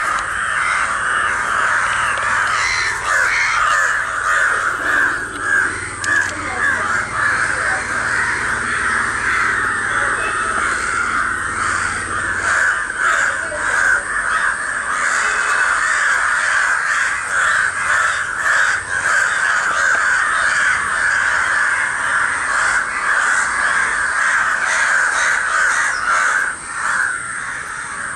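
A flock of crows cawing all at once in a dense, unbroken chorus: crows crying over one of their flock that has fallen injured.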